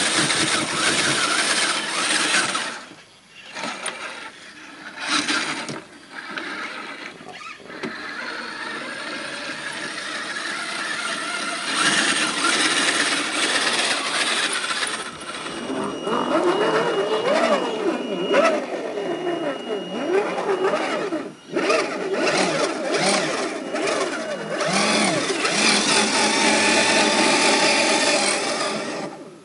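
Electric motors and geared drivetrains of 1/10-scale RC crawler trucks whining under hard throttle while their tyres spin and spray sand and gravel on a steep hill climb. In the first few seconds the throttle cuts off and comes back several times. Later the whine rises and falls in pitch with the throttle.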